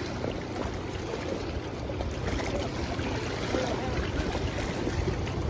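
Hiwassee River water rushing past the bank in a continuous, steady noise.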